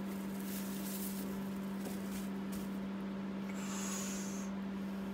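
Plastic packaging crinkling as a new work light is pulled from its sleeve, stopping about two and a half seconds in, over a steady low hum. A short high hiss comes about four seconds in.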